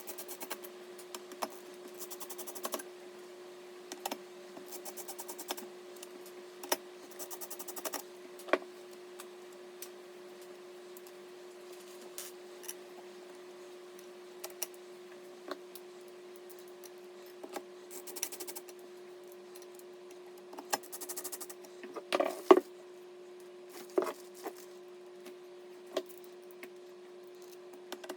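Hardware being handled and fastened: scattered clicks and taps with several short runs of fast, even ticking, like a screwdriver or ratchet turning screws. A cluster of louder knocks comes near the end. A steady low hum runs underneath throughout.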